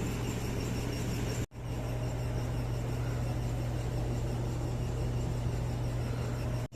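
Steady low mechanical hum with constant hiss, briefly cut off about a second and a half in.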